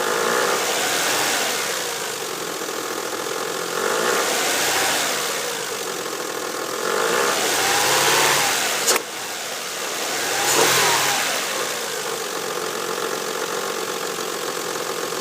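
The 2000 Mazda 626's 2.5-litre V6 is blipped from idle about four times, its pitch rising and falling each time, with one sharp click about nine seconds in. It then settles back to a steady idle. Under it runs an unidentified noise at idle, which the owner suspects comes from a timing-belt idler pulley or from a piston or bearing.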